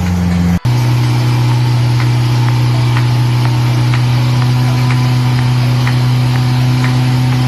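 Motorboat engine running at a steady speed while towing an inflatable tube, a constant low drone. The sound cuts out for an instant about half a second in.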